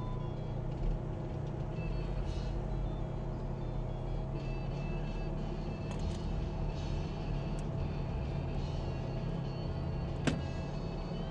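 Jeep engine running at low trail speed, a steady drone, with a sharp click about ten seconds in.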